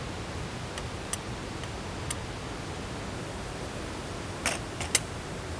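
Small black camp pot of curry being set down on a thin metal camp table: a few light clicks, then three sharp metallic clinks near the end. A steady even background noise runs underneath.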